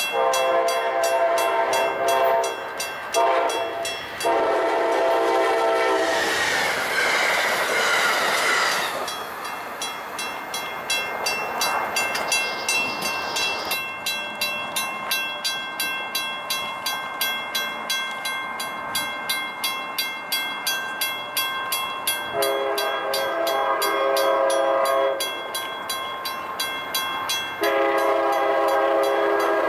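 A grade-crossing bell dings steadily, about three strikes a second, while a diesel locomotive's multi-chime horn sounds. There are two horn blasts in the first four seconds, then a rushing noise of a passing train for a few seconds. Later come a long horn blast and then a second one near the end as another train approaches.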